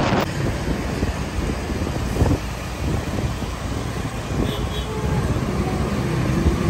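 Steady road and traffic noise heard from a moving motorbike in city traffic, with wind on the microphone. A short, faint high double beep comes about four and a half seconds in.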